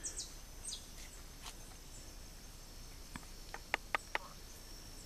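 Faint clicks and taps of a metal spoon against a handheld digital Brix meter (refractometer) as pitaya juice is put into its sample well, a quick cluster of four or five about three and a half seconds in. A steady high-pitched insect drone runs underneath.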